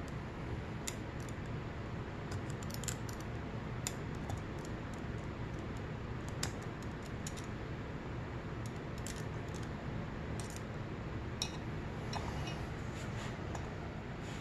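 Scattered light metallic clicks and taps as pliers and small valve-train parts are handled on the aluminium cylinder head of a Honda CRF250R, coming irregularly and sometimes a few in quick succession, over a steady low background hum.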